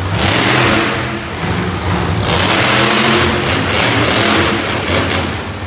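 Monster truck engine revving hard in repeated surges, its pitch rising and falling as the truck is driven across the dirt floor.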